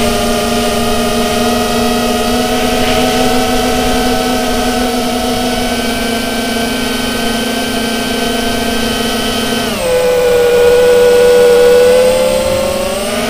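QAV210 quadcopter's motors and propellers whining steadily in flight, heard through the onboard action camera's microphone. About ten seconds in the pitch drops suddenly and the sound grows louder, then the pitch climbs back near the end as the throttle changes.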